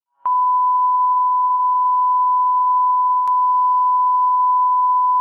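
Steady 1 kHz reference test tone, the single continuous beep that runs with colour bars, starting abruptly after silence about a quarter of a second in. A faint click cuts in briefly about three seconds in.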